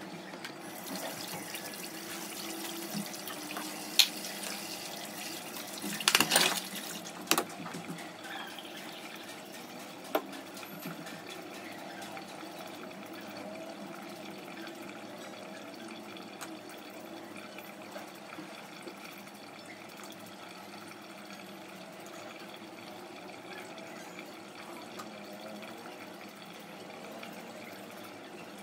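Steady water sound, with a sharp click about four seconds in, a louder, noisier burst a couple of seconds later, and two more clicks soon after.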